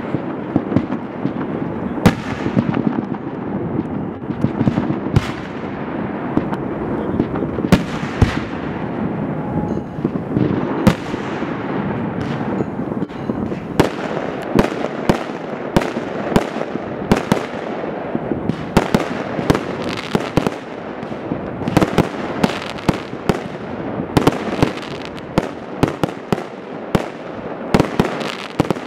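Aerial fireworks display: a rapid, irregular run of sharp bangs from bursting shells, coming thicker from about halfway through, over a continuous background noise.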